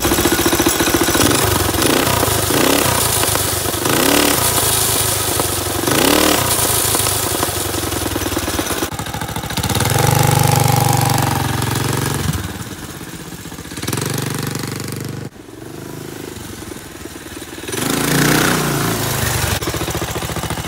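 Predator 212 single-cylinder engine with a Stage 2 kit on a small ATV, revved up and down repeatedly. It is held high for a couple of seconds about halfway through, drops back, and rises again near the end.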